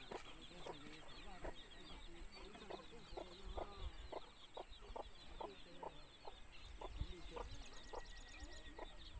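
Birds calling outdoors: a bird repeats short, evenly spaced calls, about two or three a second, over fainter high chirping and a thin steady high-pitched insect whine.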